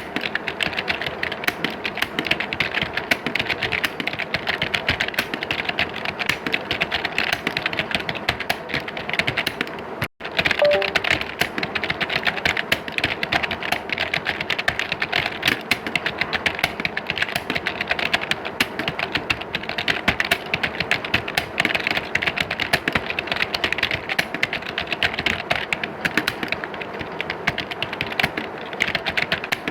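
Many computer keyboards typed on at once, as in an exam hall: a dense, continuous clatter of overlapping key clicks. The clatter cuts out for a split second about ten seconds in, then carries on.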